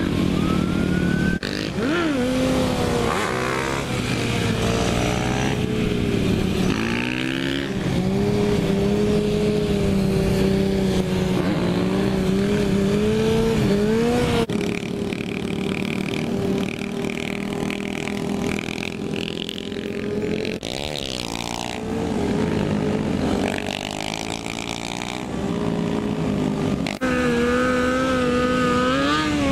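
Several motorcycle engines running and revving at speed, the pitch rising and falling with the throttle, over wind rushing past a helmet-mounted microphone. The sound changes abruptly a few times where the footage is cut.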